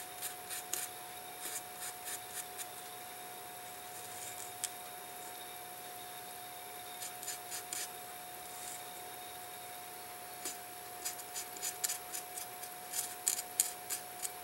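Fine scratching strokes of a small hand tool rubbing a tiny brass watch wheel held in tweezers, cleaning it. The strokes come in short bursts, sparse at first and thick near the end, over a steady faint hum.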